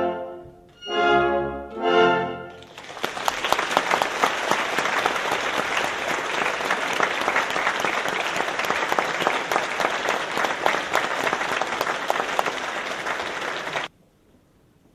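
An orchestra plays two short, loud chords about a second apart to close a ballet variation, then an audience applauds steadily. The applause cuts off suddenly near the end.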